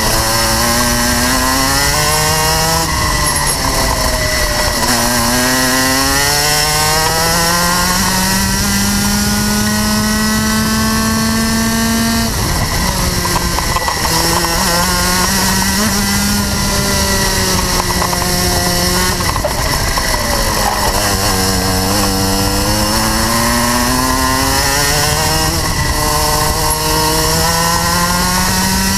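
Rotax Max 125 cc single-cylinder two-stroke kart engine at racing speed, its pitch climbing steadily as the kart accelerates, then dropping sharply under braking for the corners, about three times.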